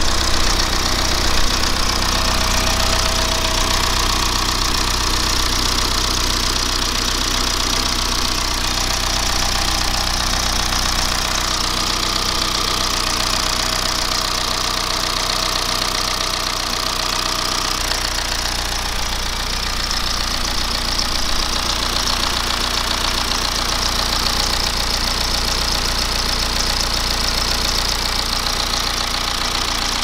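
BMW N47D20 four-cylinder turbodiesel idling steadily, making the engine noise that the customer took for a stretched timing chain; the mechanic is not sure it comes from the chains.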